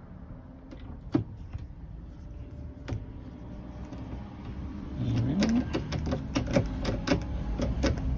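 Torx screwdriver driving the screws that hold a caravan fridge's door-lock unit in place: scattered clicks and scraping, then, about five seconds in, a short rising whine and a louder run of rapid clicks as the screws go in.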